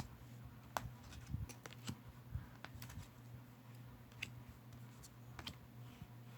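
High-gloss tarot cards being handled and laid down onto piles: light, irregular clicks and taps of card against card.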